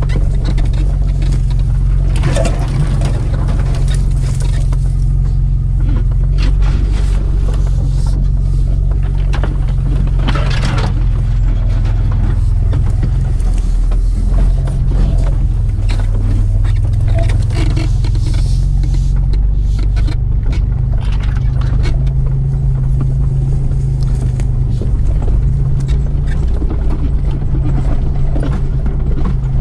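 Mitsubishi Pajero's 3-litre V6 engine running steadily as the 4x4 drives slowly off-road through brush. Branches scrape along the body and the suspension knocks over rough ground, most clearly about two and ten seconds in.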